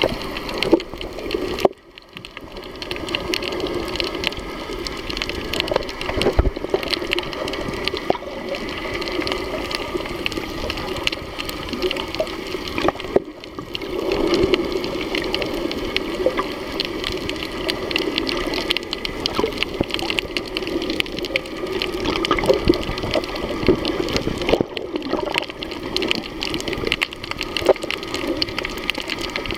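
Water heard through a submerged camera: a steady muffled rush and gurgle of sea water, full of small clicks and crackles, dipping briefly three times.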